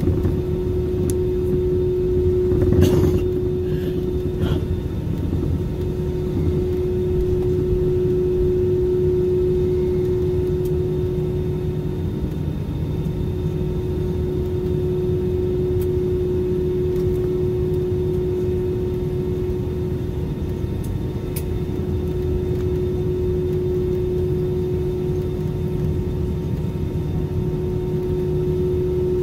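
Airliner cabin noise while taxiing: a steady jet engine drone with a constant mid-pitched hum over a low rumble. A brief knock about three seconds in.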